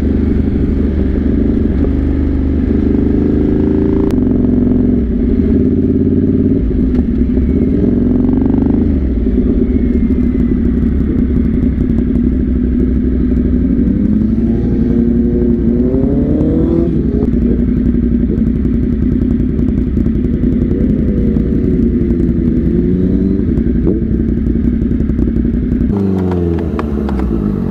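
Motorcycle engine running under way, its pitch rising and falling as it accelerates and changes gear, then dropping away near the end as it slows.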